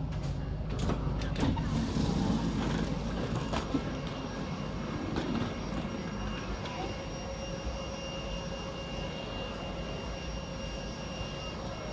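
Tram and city street ambience: a steady rumble with a faint high whine, and a few sharp knocks in the first four seconds.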